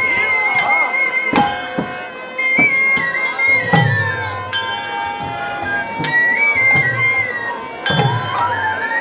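Devotional kirtan music: a harmonium's held chords under a high, wavering melody line, with sharp cymbal-like strikes and deep drum strokes that drop in pitch, several times over.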